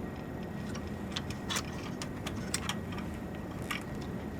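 Scattered light clicks and taps from hands handling a server's cable connector and chassis parts, about eight in all, over a steady low hum.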